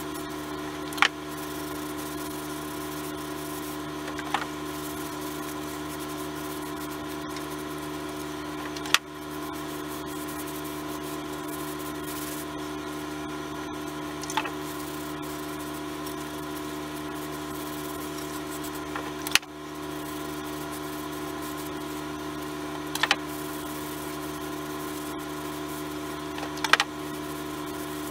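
A steady hum with several fixed pitches, broken every few seconds by a short sharp knock or click as a wooden rifle stock and a can of boiled linseed oil are handled on a workbench while oil is rubbed in with a rag.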